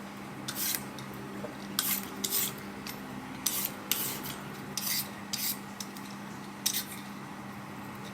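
A metal utensil scraping and stirring against a bowl in about a dozen short, irregular strokes, over a faint steady hum.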